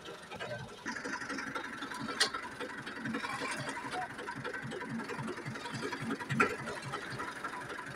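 Massey Ferguson 260 tractor's diesel engine idling steadily, with two sharp metallic clanks, about two seconds in and about six seconds in, as the hitch linkage and chopper drive shaft are fitted.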